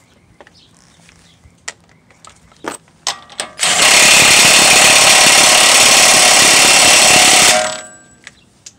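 Cordless impact wrench hammering a CV axle hub nut tight on a front wheel hub. It runs for about four seconds, starting about three and a half seconds in, then winds down. A few light clicks come before it.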